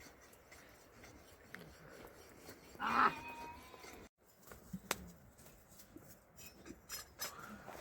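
A single short animal call about three seconds in, among a flock, over a low background with a few faint clicks.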